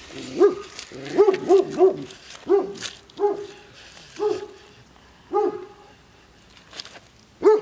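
A dog barking repeatedly: about ten short barks, a quick cluster in the first two seconds, then single barks roughly a second apart.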